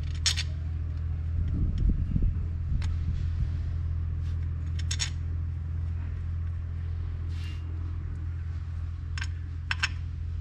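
Kubota 5040 tractor's diesel engine idling steadily, with a few sharp metallic clinks, two close together near the end.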